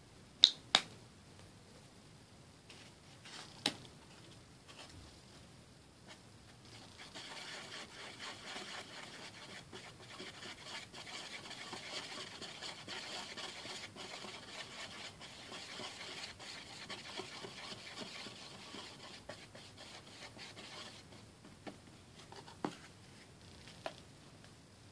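Paintbrush swirling and mixing paint on a paper-plate palette: a steady, scratchy rubbing that starts about seven seconds in and stops about fourteen seconds later. Two sharp clicks come about half a second in, and a few light taps come near the end.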